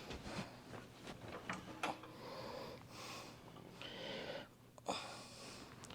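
Faint handling noises: a few light, sharp clicks and knocks scattered through, with soft rustling or breath-like hiss between them.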